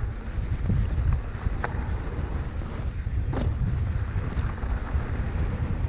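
Wind buffeting the microphone of a mountain biker riding a dirt trail, a heavy uneven low rumble, with a few sharp clicks.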